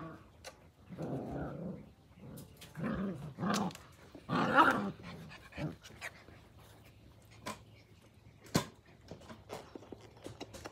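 Australian Cattle Dog (blue heeler) puppies growling and barking in play, a few loud bursts in the first half, then a few short sharp clicks.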